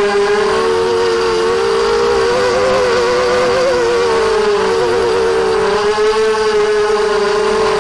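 ZMR250 racing quadcopter's brushless motors and propellers whining steadily in flight, the pitch wavering up and down between about two and four seconds in.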